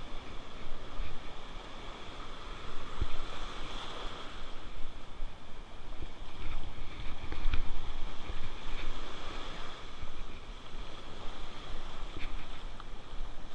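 Surf washing and churning over the shore in uneven surges, with wind buffeting the microphone and a few faint clicks.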